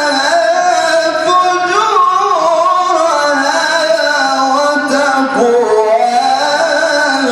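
A man's voice reciting the Quran in the slow melodic style, drawing out long held notes that glide and waver in pitch without a break, amplified through a microphone. A faint steady high-pitched tone runs underneath.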